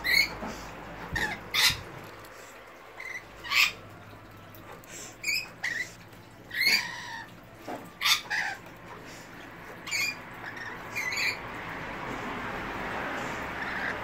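Rainbow lorikeets giving short, shrill squawks, about a dozen at irregular intervals, as they feed on pear from a hand.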